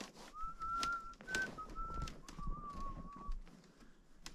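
A string of whistled notes held at a few steady pitches, the longest lasting about a second, with faint clicks of handling in between.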